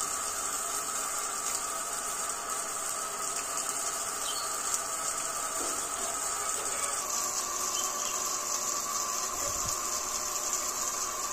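Steady insect chorus: an unbroken high buzzing drone that does not change.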